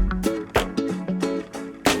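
Background music with a steady beat and guitar, in a funk style.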